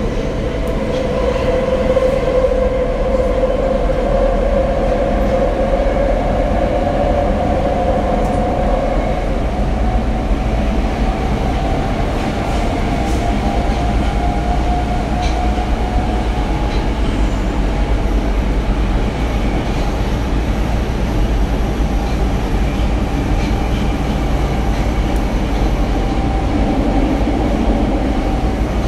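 Tokyo Metro Marunouchi Line 02 series subway train running, heard from inside a passenger car: a steady rumble of wheels on rail with a traction-motor whine that rises in pitch over the first nine seconds or so as the train picks up speed, then holds level while it runs at speed.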